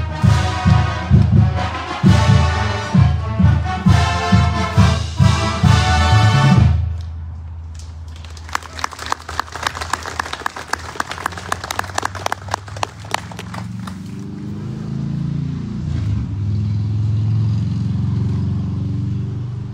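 Brass band music with a strong beat about twice a second, ending about seven seconds in. An audience applauds for about five seconds after that. Then a low engine drone swells and fades away.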